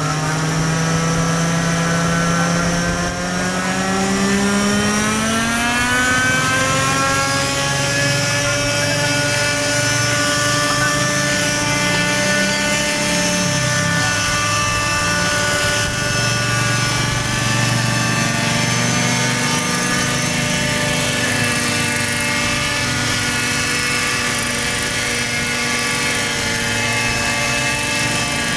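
Radio-controlled model helicopter's small engine and rotor running up: the pitch climbs steadily over the first several seconds, then holds at a steady high whine that wavers slightly as it flies.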